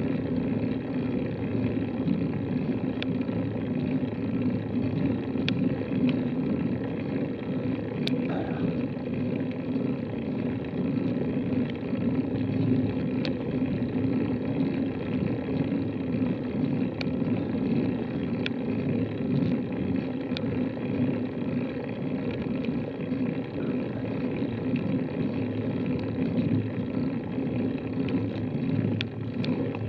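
Steady low noise of wind and rolling on a bicycle-mounted camera's microphone during a slow uphill climb, with a few faint clicks scattered through it.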